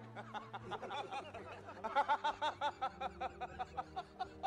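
A person giggling in a quick string of short, high-pitched bursts, about four a second, loudest around two seconds in.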